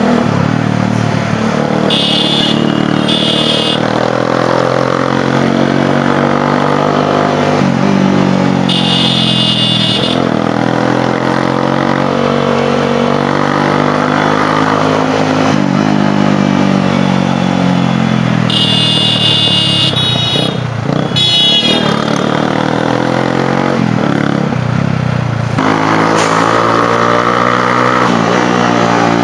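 Motorcycle engine pulling under way, its pitch climbing through each gear and dropping back at the shifts. A few short, high beeps sound over it, twice near the start, once around nine seconds and several around twenty seconds.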